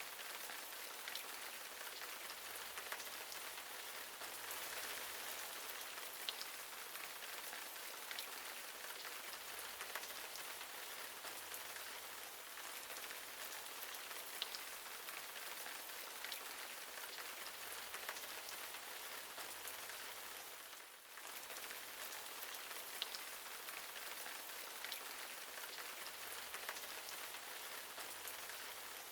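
Steady hiss of falling water, like rain, with scattered small ticks; it dips briefly about twenty-one seconds in.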